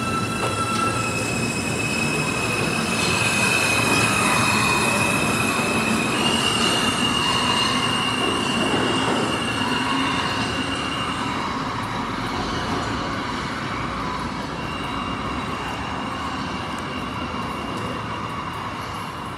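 R160A-2 subway train pulling out of the station and running off into the tunnel, with wheel and rail rumble. High steady whines step up in pitch about six seconds in. The sound is loudest a few seconds in and slowly fades as the train pulls away.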